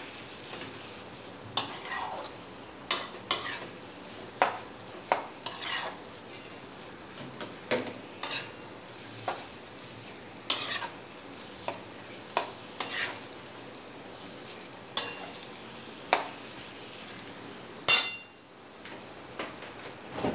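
A steel spoon scraping and knocking against a metal kadai as grated paneer bhurji is stirred and fried in oil, over a faint steady sizzle. The scrapes and knocks come irregularly, about one a second, with one louder ringing knock near the end.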